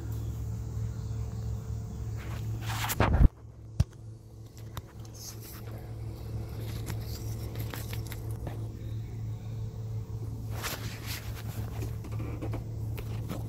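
Handling noise from working with the tool and phone: rustling, scrapes and small clicks over a steady low hum. A loud rustle about three seconds in cuts off suddenly, followed by a sharp click; another rustle comes near the end.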